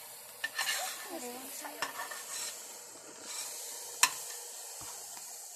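Scrambled eggs sizzling in a stainless steel frying pan while a spatula stirs and scrapes them along the bottom, with a few sharp clinks of the spatula against the pan; the loudest clink comes about four seconds in.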